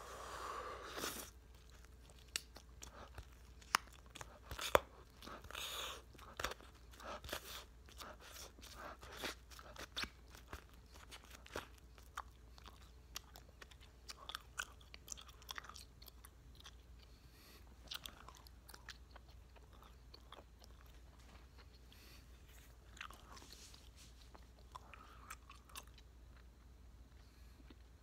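Close-up chewing of a large wad of bubble gum, about 18 pieces, with wet, irregular smacking and clicking of the mouth, busiest in the first half.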